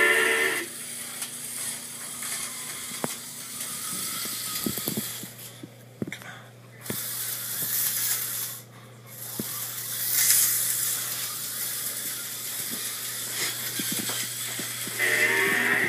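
HO-scale Super G slot cars running on a plastic track: an even whirring hiss with scattered clicks and rattles over a steady low hum. Music plays at the very start and comes back near the end.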